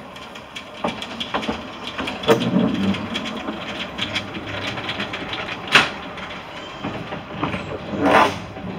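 Narrow-gauge steam locomotive and its carriages pulling away past at low speed: wheels clicking and clattering over rail joints and points, with a few louder noisy bursts, about a quarter of the way in, two-thirds in and near the end.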